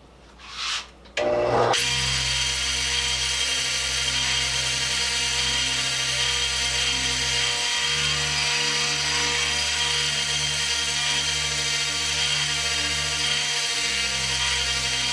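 A motor-driven wire brush starts about two seconds in and runs steadily, scouring oxide off threaded steel ends to prepare them for silver soldering. Its tone shifts about eight seconds in and again near the end, and it stops suddenly.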